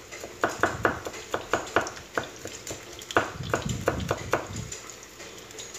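A large kitchen knife chopping on a wooden cutting board, mincing garlic finely. The knocks are sharp and irregular, about five a second, in two runs with a short pause between them.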